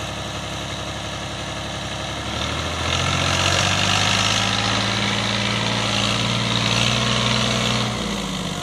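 Al-Ghazi farm tractor's diesel engine running steadily, then revving up about two and a half seconds in and holding high, under load from a trolley piled with sugarcane; it eases off briefly near the end.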